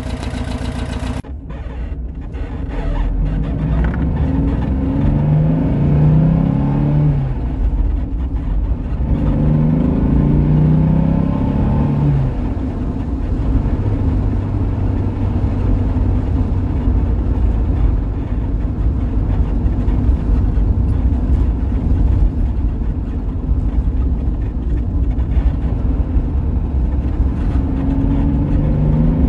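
1965 Porsche 912's air-cooled 1.6-litre flat-four engine heard from inside the cabin while driving: it climbs in pitch twice through the first twelve seconds as the car accelerates through the gears, then runs steadily at cruising speed, and starts to climb again near the end.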